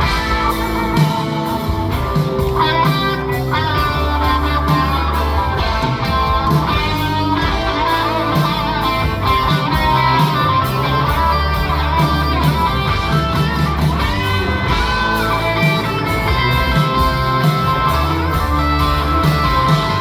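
Live rock band playing an instrumental break: a lead guitar line with bent notes over strummed guitar, bass and drums.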